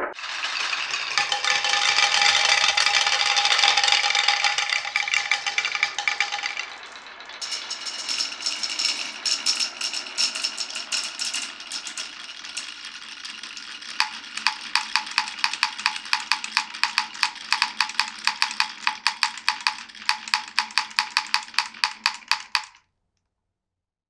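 Marbles rolling and clattering along a wooden marble-run track, then an even run of sharp wooden clicks, about four to five a second, for the last several seconds before the sound cuts off suddenly.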